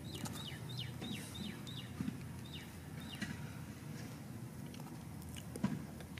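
A small bird calling a quick run of short, high, downward-slurred chirps, about three a second, which stops a little past halfway. Under it a steady low background rumble and a few soft knocks.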